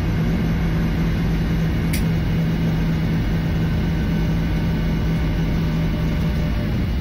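Cabin noise inside a Boeing 737-800 taxiing after landing: its CFM56-7B engines at idle give a steady low hum with a droning tone over a rumble. A single sharp click about two seconds in.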